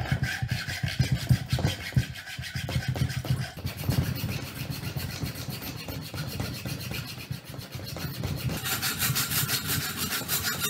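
Hand sawing through a wooden dowel: quick back-and-forth strokes of a hacksaw cutting a slot lengthwise into the wood. Near the end a larger handsaw takes over, its strokes brighter and higher-pitched.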